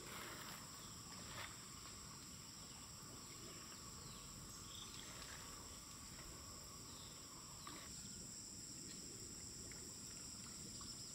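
Steady high-pitched chorus of insects, with a few faint splashes and knocks from a fishing net being hauled through pond water.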